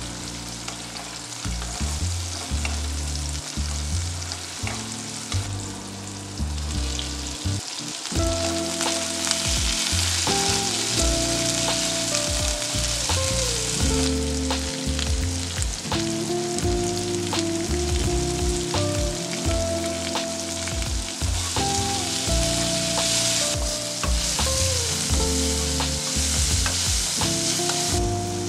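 Diced red bell pepper, green chilli and pineapple chunks sizzling in oil in a nonstick wok, stirred with a spatula that clicks against the pan. The sizzle grows louder about eight seconds in. Light background music plays underneath.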